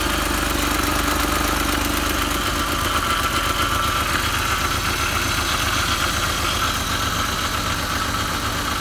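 BMW E39's 2.5-litre M54 straight-six (engine code 256S4) idling steadily.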